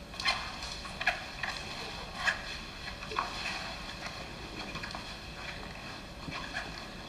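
Scattered light taps and clicks, irregularly spaced and most frequent in the first three seconds and again near the end, over a steady faint hiss, from a film soundtrack played in a screening room.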